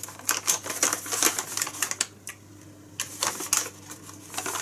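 Brown paper bag crinkling and rustling as it is handled and opened: quick, dense crackles, a pause of about a second partway through, then more crackling.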